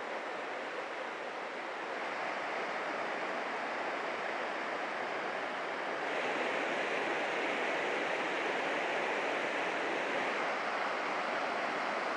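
Mountain river rushing over boulders and through rapids, a steady roar of water that gets louder and brighter about halfway through.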